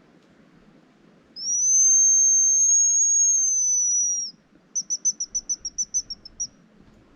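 Hazel grouse decoy whistle blown close by, giving the grouse's call: one long thin high whistle that rises slightly and falls away at the end, then a quick trill of about ten short notes.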